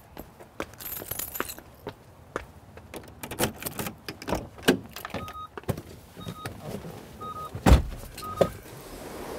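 Car keys jangling and clicking at a car door as it is unlocked and opened, with four short, evenly pitched electronic beeps in the second half. A car door shuts with a heavy thump a little past halfway, followed by a smaller knock.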